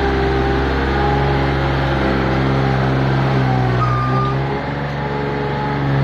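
Thomas LB 85 skid steer's engine running close by as the machine manoeuvres, steady, easing off briefly past the middle and picking up again near the end.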